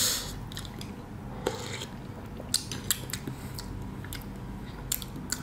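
Soft, scattered clicks and taps from eating at the table: chopsticks and a metal spoon touching the bowl of noodles, and mouth sounds while tasting the broth, over low room tone.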